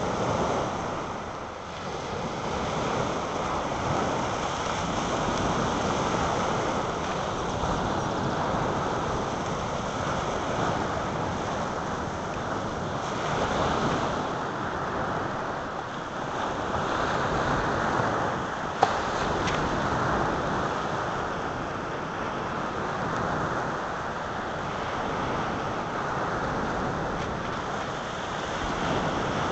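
Small sea waves breaking and washing on a pebble beach, a continuous surf that rises and falls, with wind on the microphone. A single sharp click about two-thirds of the way through.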